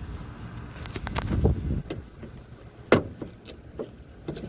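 A plastic interior trim panel in a car's rear seat area being worked loose by hand: rubbing and knocking handling noise, with one sharp, loud knock about three seconds in and a few lighter knocks near the end.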